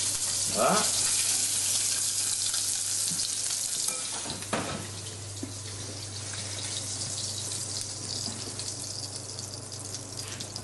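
Sea bream fillet sizzling in hot oil in a frying pan. The sizzle is strongest for the first few seconds and then dies down. There is a single sharp clink about four and a half seconds in.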